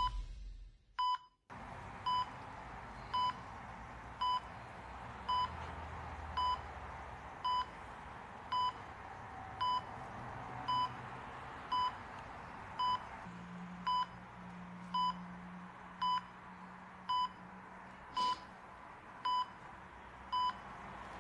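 A patient heart monitor beeping: a short, high electronic beep repeating evenly about once a second, starting about a second in as the music fades out.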